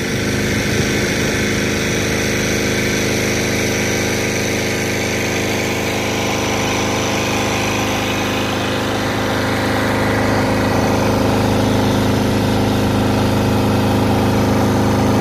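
An engine running steadily at a constant pitch, growing slightly louder towards the end.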